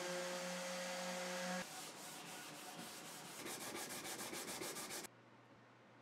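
Electric random orbit sander on walnut: a steady motor hum, which stops about a second and a half in. A rougher, scratchy sanding rub with quick, even strokes follows, and cuts off abruptly about five seconds in.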